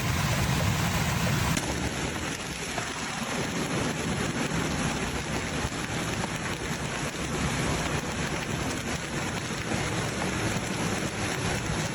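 Hailstorm: hail and heavy rain pelting down on surfaces in a dense, steady clatter.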